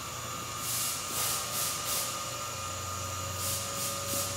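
Tormach CNC lathe cutting a 7.5-inch aluminum disc with flood coolant: a steady machine hum with a few held tones, and hissing that swells and fades several times as coolant sprays over the turning part. The spindle is running slowly for the large diameter.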